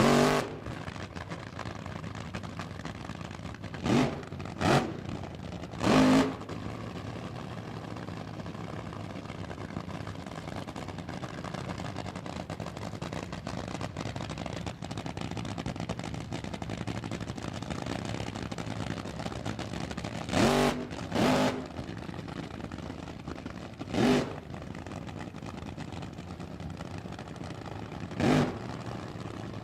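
Sports car engine idling steadily, blipped about eight times with short, loud revs, in clusters near the start, in the middle and near the end.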